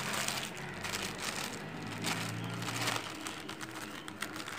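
Irregular crackling and crinkling, with a faint low steady hum that stops about three seconds in.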